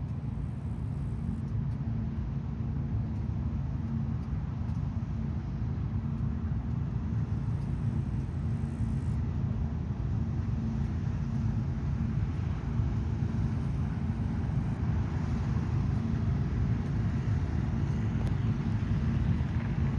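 New Holland CX8.70 combine harvester running steadily while cutting wheat, a constant engine and machinery drone that grows slightly louder toward the end.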